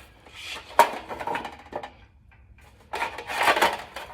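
Steel roller drive chain clinking and rattling as it is fed by hand around the sprocket, with a sharp click about a second in and a denser run of clattering near the end.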